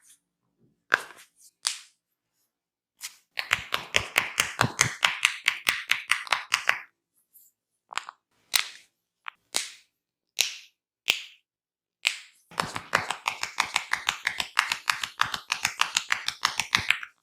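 Hands striking skin in a percussive massage: two fast runs of sharp slaps, several a second and each a few seconds long, with single sharp snaps between them.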